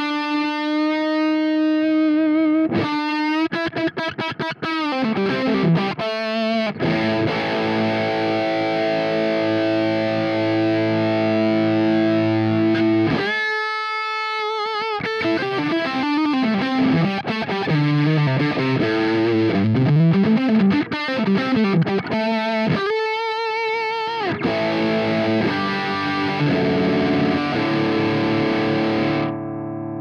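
Electric guitar played through a TC Electronic JIMS 45, a Marshall JTM45-style amp emulator pedal, recorded direct: overdriven lead lines with bent and vibrato notes mixed with chords. Near the end a chord is left ringing and slowly fades.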